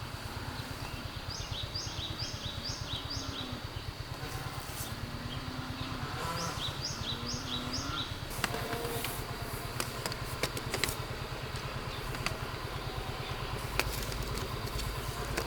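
A small engine running steadily with a low, even pulse, while a bird chirps in short quick series of four or five notes. Sharp clicks and taps come in over the second half.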